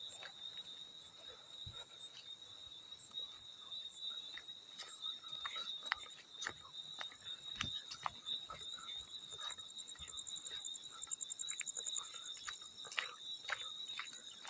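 Field cricket chirping steadily at one high pitch, with a higher pulsing trill that grows stronger past the middle. Scattered sharp clicks and small water splashes sound throughout.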